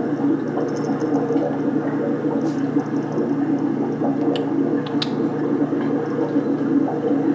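Sound from a television playing, a steady dense sound with no speech, with a few faint clicks between about two and a half and five seconds in.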